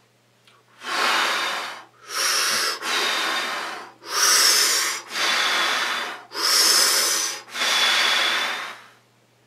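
A man breathing hard and fast through pursed lips, seven loud hissing breaths of about a second each: a powerlifter's psych-up breathing to get into a focused state.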